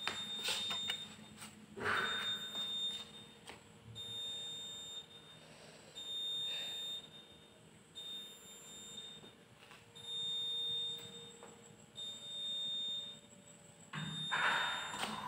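A high-pitched electronic beep repeating about every two seconds, each beep lasting about a second. Near the end, the lift's steel doors slide open with a short rushing noise.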